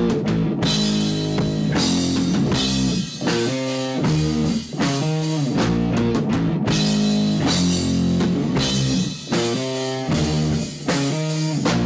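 Rock band playing live, with electric guitars and a drum kit. The chords change every second or so over a steady beat.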